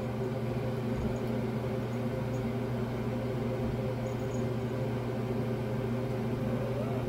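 Steady low hum of a running motor, constant in pitch and level, with a few fixed tones.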